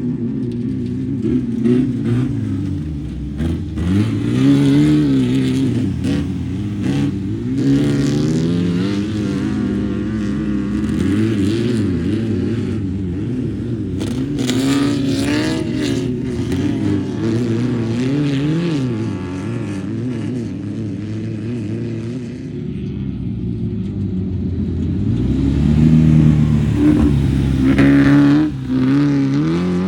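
Off-road race car engines revving and passing, the pitch climbing and falling again and again, with more than one engine heard at once. The loudest pass comes near the end.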